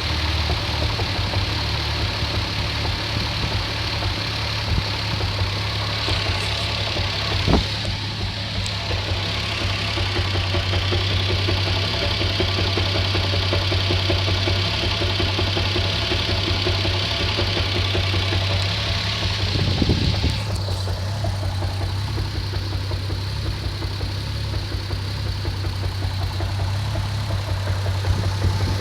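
Toyota Supra RZ's 2JZ-GTE twin-turbo straight-six idling steadily with a repetitive knocking noise that persists at idle. A single sharp click about a quarter of the way in.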